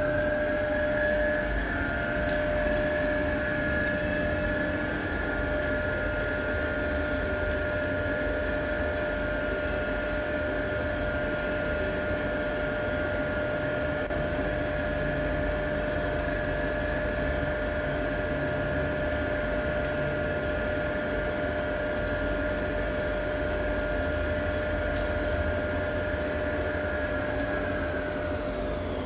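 Elevator traction machine running through a full trip of about ten floors. Its motor whine rises in pitch as the car speeds up near the start, holds steady, then falls as the car slows to a stop near the end, over a steady hum.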